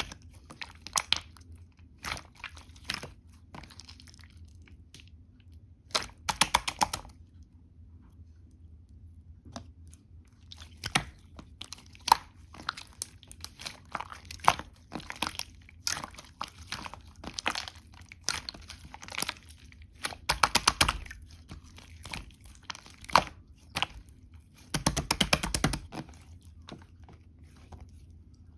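White slime being squished, pressed and folded by hand, giving irregular sticky clicks and pops, with several bursts of rapid clicking.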